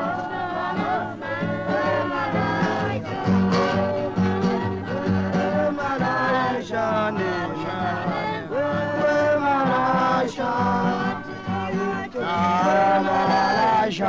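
Zulu wedding music: voices singing over a rhythmic instrumental accompaniment, with short strikes marking the beat.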